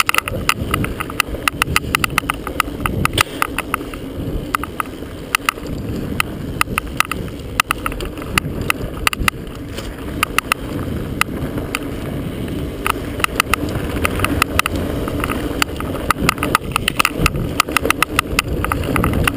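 A chest-mounted action camera knocks and rattles against its mount in fast, irregular clicks. Under the knocking is the steady low rumble of a mountain bike rolling fast down a dirt single-track trail.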